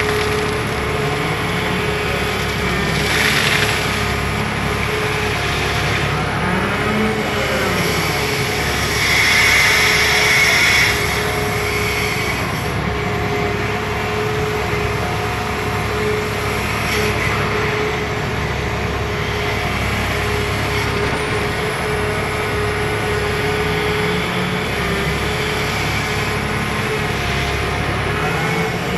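Caterpillar 336E hydraulic excavator's diesel engine running under load while digging, its pitch swelling up and back down with each dig-and-swing cycle. There are louder gritty surges about three seconds in and again around ten seconds.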